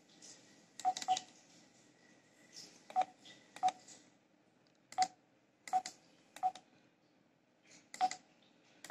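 Keypad of a ZKTeco iClock9000-G fingerprint time-attendance terminal beeping on each key press: about nine short single-pitch beeps, each with a soft click, spaced unevenly about a second apart.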